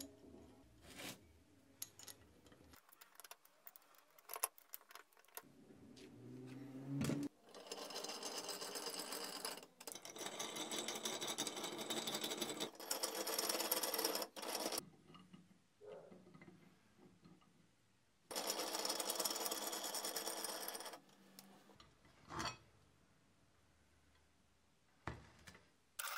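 A small power tool running in four bursts of two to three seconds each, with scattered metallic clicks and knocks between them.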